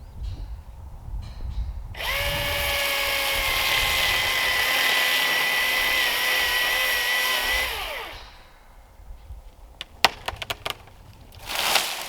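Handheld power tool, likely a drill, running at steady speed for about six seconds, then winding down as its trigger is released. A quick run of sharp clicks and a short burst of noise follow near the end.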